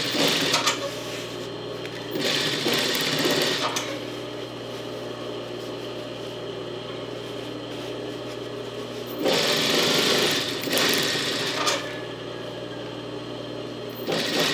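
Singer sewing machine stitching a waistband onto a skirt in several short runs: one at the start, one about two seconds in, the longest (about two and a half seconds) past the middle, and another at the end. A steady low hum continues between runs.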